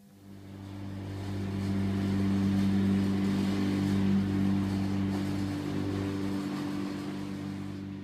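Steady mechanical hum of a toy's motor running. It swells over the first few seconds, holds, then eases off toward the end.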